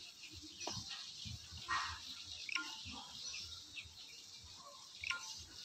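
Quiet yard ambience with small birds giving scattered short chirps, and a brief rustle about two seconds in.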